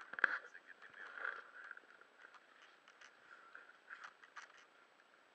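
Irregular light taps, knocks and scrapes of a camera being handled and shifted about, muffled and faint.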